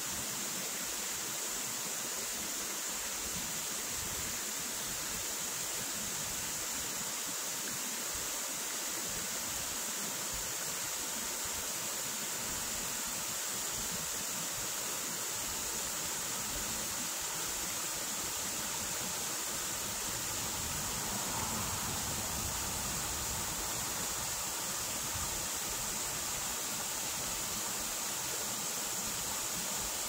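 Water of a small waterfall and the rocky stream below it rushing and splashing over stones, a steady hiss.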